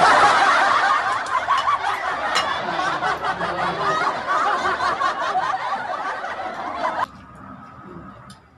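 Loud laughter that cuts off abruptly about seven seconds in.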